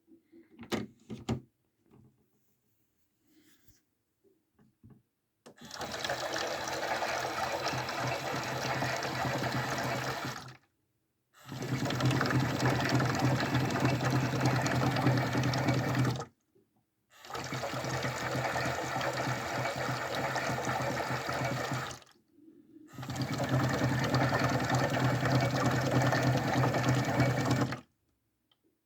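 Toy washing machine's small electric motor turning the water-filled drum in a wash cycle, humming with water sloshing, in four runs of about five seconds with a one-second pause between each, the stop-start pattern of a drum that reverses direction. A few faint clicks come before the motor starts.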